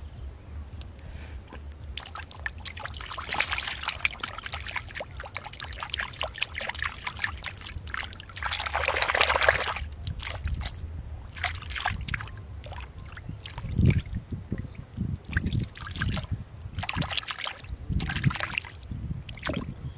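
A hand sloshing and squelching in muddy water inside a flooded hole, with splashes coming in uneven bursts; the longest and loudest is about nine seconds in.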